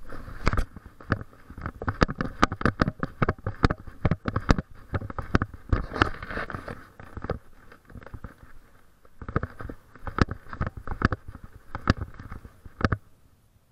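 Rapid, irregular knocks and scuffs from a person walking with a hand-held or body-worn camera: footfalls on a concrete sidewalk mixed with the camera's handling rattle. There is a short lull in the middle, and the sound stops a little before the end as the walking halts.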